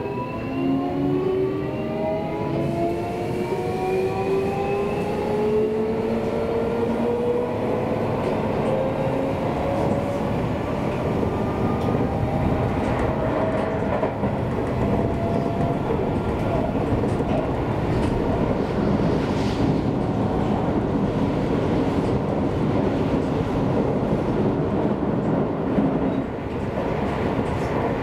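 Seibu Railway electric train accelerating: a whine of several tones rises slowly in pitch over the first dozen seconds. It then fades into the steady running noise of wheels on rail.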